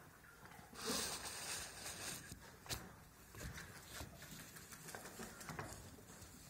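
Young Japanese quail moving about in straw bedding: soft rustling and scattered small taps and scratches, with a louder rustle about a second in.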